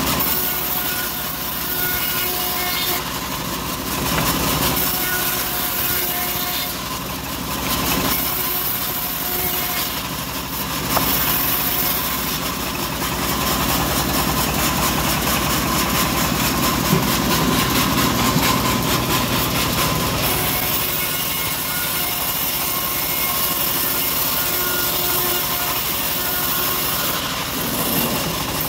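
Homemade band sawmill running while teak boards are fed through its blade: a steady machine drone with the blade cutting wood. The drone grows deeper and louder for several seconds in the middle.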